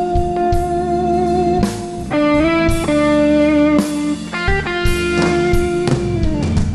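Live blues band playing, with an electric guitar filling the gap between vocal lines with long held notes that bend and slide in pitch, over steady band accompaniment.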